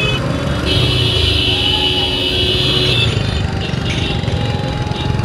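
Motorcycle engine running at low speed in congested street traffic. A high-pitched horn sounds for about two seconds starting near the first second, and a fainter short beep follows a little later.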